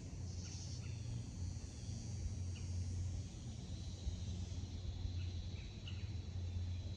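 Open-air ambience: a steady low rumble with faint, short bird chirps scattered through it.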